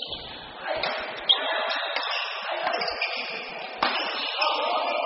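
Voices chattering and echoing in a large sports hall during play, with two sharp hits, one about a second in and one near four seconds in.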